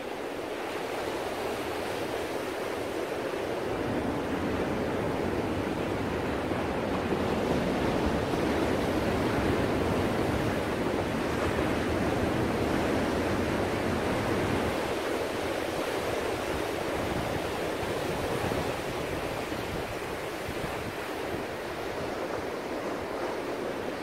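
Ocean surf: a steady rush of breaking waves and washing foam. It swells louder a few seconds in and eases off again after about fifteen seconds.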